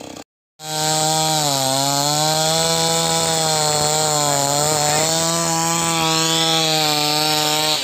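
Two-stroke chainsaw running at high revs as it cuts into a tree trunk, steady, with the pitch sagging a little about a second and a half in as the chain bites. A brief dropout at the very start.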